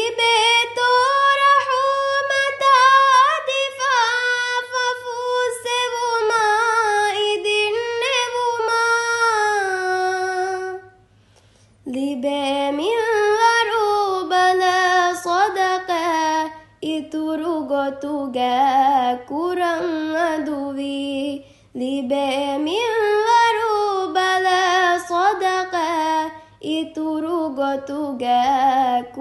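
A single voice sings a melodic Ramadan song in long, held phrases. The singing breaks off for a moment about eleven seconds in and a few times after that, then goes on.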